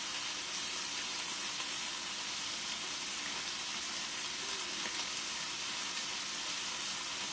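Steady sizzling of food frying in a pan, an even hiss with a faint low hum under it.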